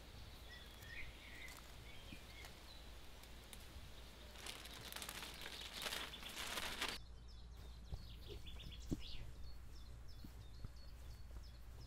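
Faint outdoor ambience with birds chirping, many quick high chirps in the second half. Around the middle, a few seconds of rustling foliage as elder branches are handled.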